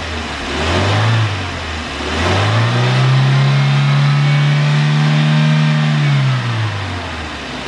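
Geely MK Cross 1.5-litre 16-valve four-cylinder petrol engine being revved: two short blips of the throttle, then revs held high for about four seconds before dropping back toward idle near the end.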